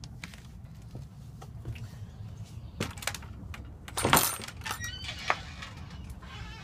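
A door being opened to step outside: a few clicks and knocks, then a loud rattling clatter about four seconds in, over the rumble of a handheld phone microphone being carried.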